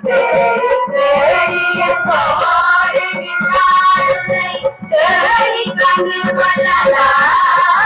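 A group of girls and women singing a devotional song together into microphones, with hand-drum accompaniment. The melody breaks off briefly a few times between phrases.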